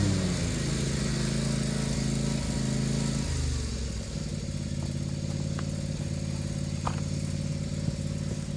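Small gas engine of a string trimmer, its pitch dropping about three seconds in as it comes off high revs, then running at a steady idle.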